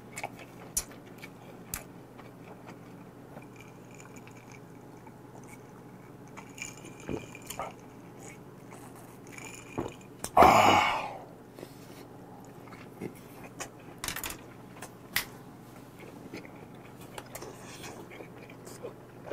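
Close-up eating sounds: a person chewing fish cake in broth, with small wet mouth clicks scattered throughout. About halfway through comes one loud, breathy rush of air lasting about a second.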